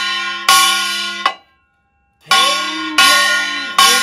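Kkwaenggwari (Korean small brass gong) struck with a mallet: one bright ringing stroke that is cut off short, a brief pause, then three more strokes in quick succession. In the later strokes the ring wavers in pitch, as the player alters the gong's sound while striking.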